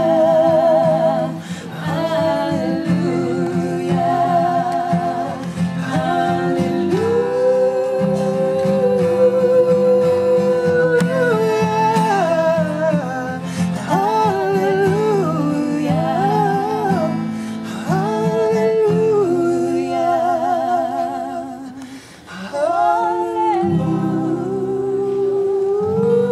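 A man sings long held notes with a wavering vibrato over his own acoustic guitar playing steady chords. Near the end the voice drops out briefly, then comes back on a long held note.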